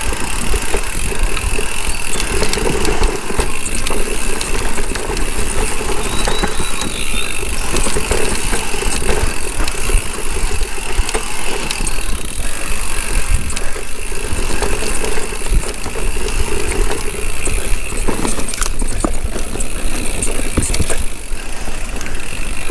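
Mountain bike rattling down a rough downhill trail, with steady wind noise on the microphone and a few sharp knocks over the ground near the end.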